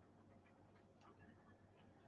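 Near silence: faint room tone with a couple of soft ticks about a second in.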